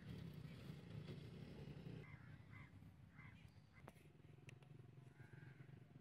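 Near silence: faint outdoor background with a few soft high chirps around the middle and a couple of light clicks.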